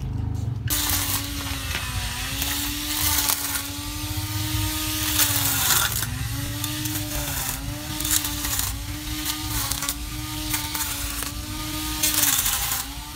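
Cordless electric grass trimmer running at a steady high-pitched whine, the pitch dipping briefly every second or two as the spinning cutting head bites into grass, with a rough hiss of grass being cut.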